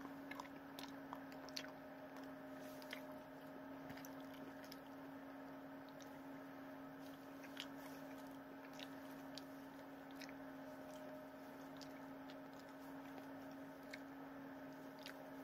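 A person chewing a mouthful of BBQ chicken wrap, with small mouth clicks scattered throughout, over a steady low electrical hum.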